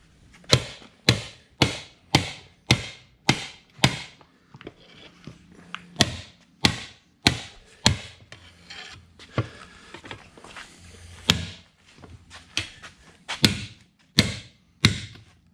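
Repeated hammer strikes on an ATV wheel during a tire change. There are about seven sharp blows at roughly two a second, a short pause with faint scraping, then further blows in uneven runs to the end.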